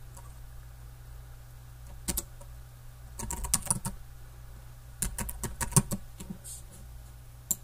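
Typing on a computer keyboard: key clicks in short quick runs, a single click about two seconds in, then bursts of several keys around three and a half seconds, around five to six seconds and again near the end, over a low steady hum.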